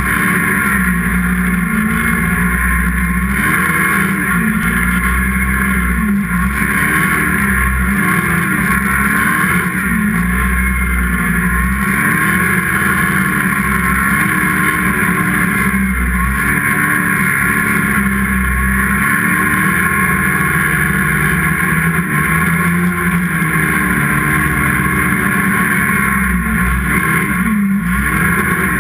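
Snowmobile engine running hard, its pitch rising and falling every second or two as the throttle is worked through carving turns in deep snow.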